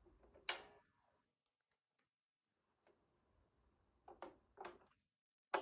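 Sharp clicks and knocks from an automatic turntable's mechanism as its tonearm lifts and swings out over the spinning record: a loud click about half a second in, a few softer ones about four seconds in, and another loud click near the end.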